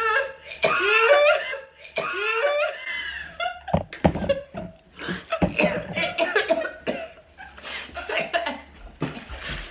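Two young women laughing, then coughing repeatedly as they chew foul-flavoured Bean Boozled jelly beans.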